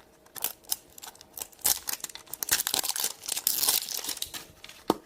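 Plastic packaging crinkling and tearing as a blind-packed squishy toy is opened by hand, as an irregular run of crackles and sharp clicks with a louder snap near the end.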